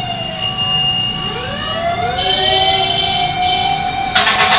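Fire truck sirens wailing over street traffic, with several tones rising in pitch about a second in. Near the end a loud, harsh blast cuts in.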